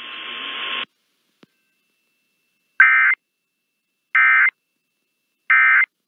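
Three short bursts of Emergency Alert System digital data tones, a warbling two-pitch screech about a third of a second each and about 1.4 s apart: the end-of-message code that closes an EAS alert. Before them a hiss with a steady tone grows louder and cuts off just under a second in.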